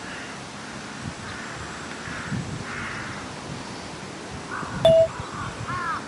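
Crows cawing now and then over a low rumble of wind on the microphone. About five seconds in there is a sharp click with a short steady beep, the loudest moment, followed by a few quick arching bird calls.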